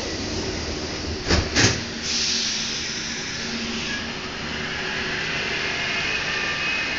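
MP89CC rubber-tyred métro train running between stations, heard from inside the car: a steady rushing noise from the tyres and running gear, with two sharp knocks close together about a second and a half in. A thin high whine comes in near the end.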